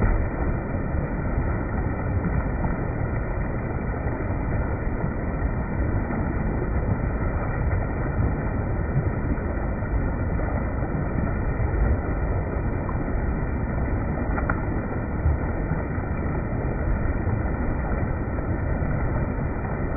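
Spring water running and gurgling in a steady rush.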